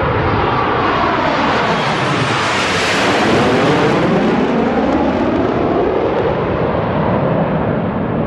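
A jet aircraft passing low overhead. Its engine noise swells to its loudest about three seconds in, then fades as it moves away.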